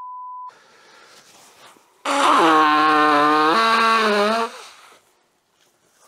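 A steady test-tone beep for half a second with the colour bars, then about two seconds in a loud honking nose-blow into a tissue lasting about two and a half seconds, stepping down in pitch partway through.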